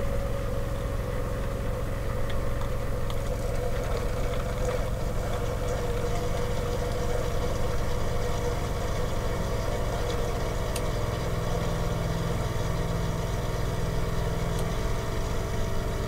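Chulux single-serve K-Cup coffee maker brewing: its pump hums steadily at a fixed pitch over a low drone, with a deeper hum added for about four seconds in the second half.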